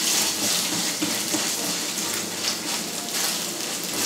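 Hot oil sizzling steadily with small crackles in a frying pan as a grated-potato pancake fries.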